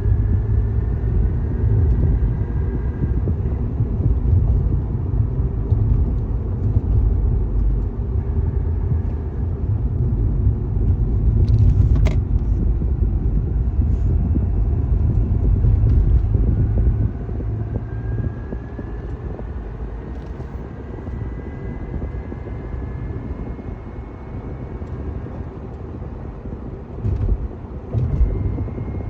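2005 Acura TL's 3.2-litre V6 engine accelerating: a low rumble with a faint whine that rises in pitch several times. This is the unexplained acceleration noise the owner is trying to identify. A single sharp click comes about twelve seconds in.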